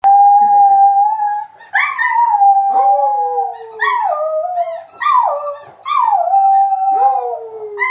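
Border terrier howling: one long steady note, then a run of shorter notes that each slide down in pitch.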